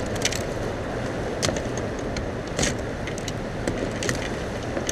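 Steady rushing of wind and water around a fishing boat, with a few sharp clicks and knocks scattered through it.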